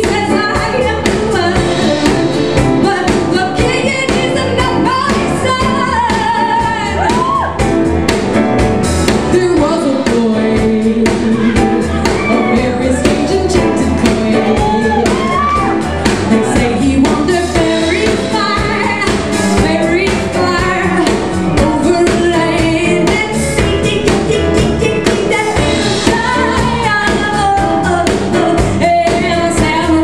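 Live band music: a woman singing a gliding melody over guitar, upright bass and keyboard, with a steady beat.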